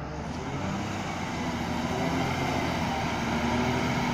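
Diesel engine of a heavy tanker truck running as it approaches, growing steadily louder.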